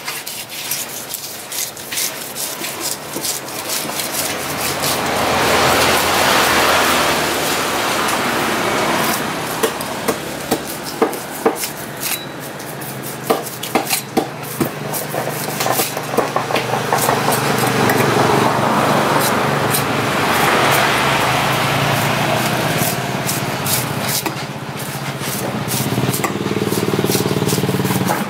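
A large knife scraping scales off a giant trevally and cutting into it on a wooden chopping block: many short, sharp scrapes and taps. Motor traffic runs behind it, swelling and fading a few times.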